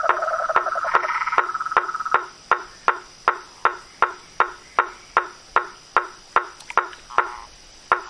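Frogs calling: a buzzy trilled call fades out about two seconds in, while sharp, evenly spaced knocking notes, about two and a half a second, go on throughout.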